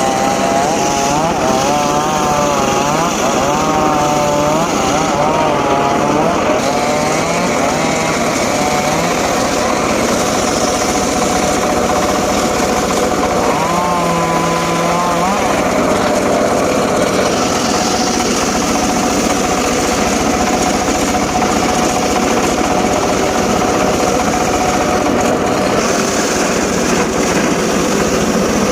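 Engine-driven saw running continuously while cutting teak wood. Its pitch wavers up and down under load for the first several seconds, rises and dips briefly about halfway, and then holds steady.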